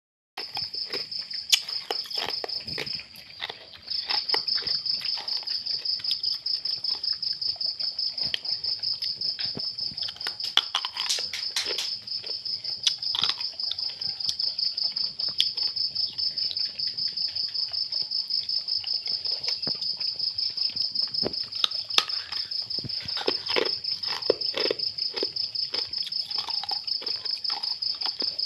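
A cricket chirping in a rapid, even trill that stops briefly about three seconds in. Scattered clicks and scuffles come from puppies eating out of a plastic bowl.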